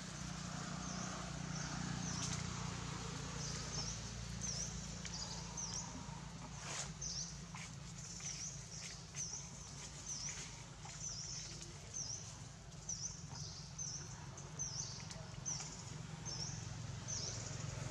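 A bird calling over and over from a few seconds in: a short high chirp about every three-quarters of a second. Under it runs a steady low rumble, with a single click about seven seconds in.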